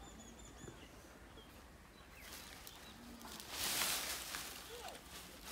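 Small birds chirping faintly, then from about three and a half seconds in a loud dry rustling of maize stalks being handled and laid on a roof frame.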